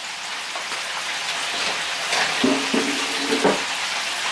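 Batter-coated chicken pieces deep-frying in hot oil: a steady crackling sizzle.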